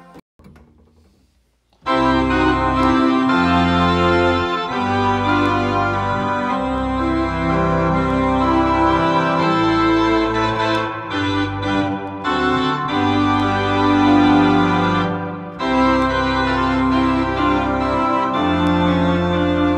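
Home electronic organ playing a hymn in full sustained chords over a held low bass. A final chord fades out at the start, and after a short silence the playing begins about two seconds in.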